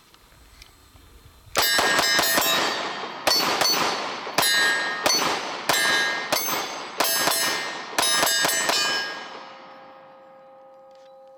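Glock 26 Gen 4 9mm pistol firing a long string of shots in quick groups, starting about a second and a half in and stopping about nine seconds in. After the last shot a steady ringing tone lingers.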